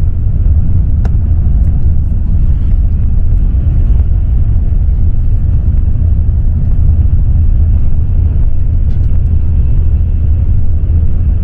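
Steady low rumble of a passenger train running, heard from a seat inside the carriage.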